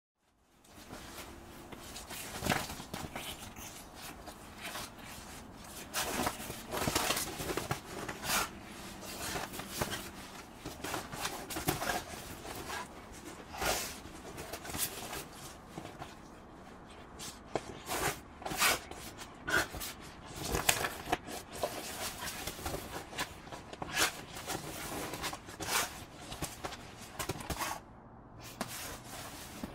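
A pit bull wriggling and rolling on its back on a leather couch: its body and claws rub and scrape against the leather cushions in many short, irregular scuffs and squeaks.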